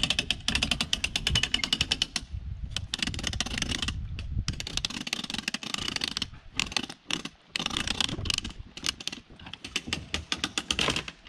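Hand winch ratcheting as it is cranked: rapid pawl clicks in runs of a second or two, with short pauses between runs.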